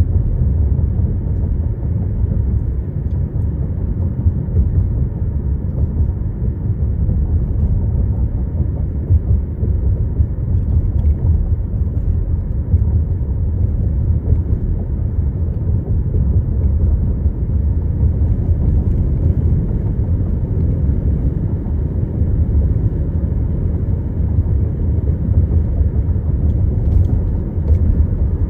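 A car driving along a road: a steady, deep rumble of engine and tyre noise that holds even throughout.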